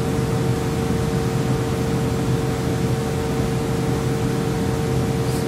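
Atlas Copco VSD rotary-screw air compressor running steadily, a loud, even mechanical hum with a constant tone, back in normal operation once its emergency-stop alarm was reset. A brief faint click comes near the end.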